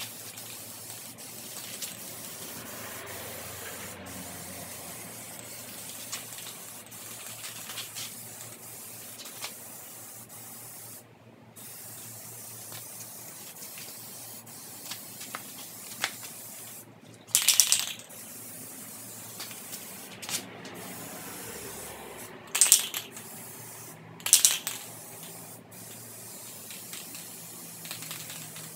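Aerosol can of Plasti Dip rubber coating spraying onto a car grille: a steady hiss that breaks off briefly about eleven seconds in, with three louder, short hisses in the second half.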